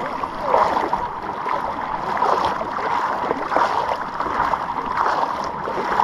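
Small Black Sea waves washing and splashing at the shoreline, an even wash of water noise, with faint indistinct voices mixed in.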